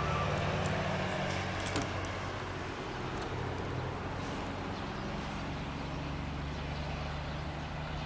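Ferromex 4516 diesel-electric locomotive's engine running as the freight train approaches, a steady low drone; the heavy black exhaust smoke shows it working under load. A few sharp clicks sound in the first two seconds.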